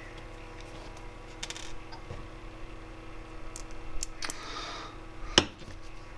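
Light clicks and taps of a plastic G.I. Joe action figure and a small screwdriver being handled, with one sharp click about five seconds in, over a steady low hum.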